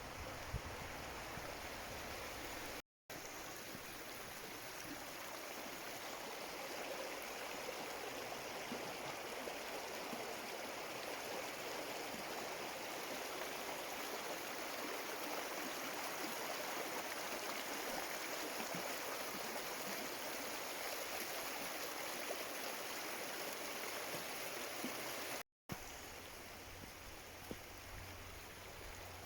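A woodland stream running, a steady rush of water. The sound drops out completely for a moment twice, about three seconds in and near the end.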